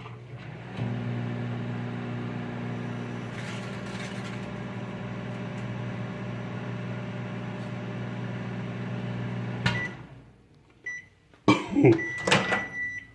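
Microwave oven running with a steady hum for about nine seconds, then cutting off with a click. Near the end come a short beep, then a few loud clunks and a longer beep.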